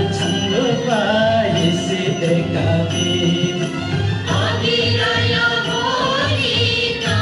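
A song playing: a singing voice gliding between notes over instrumental accompaniment with a steady, pulsing low beat.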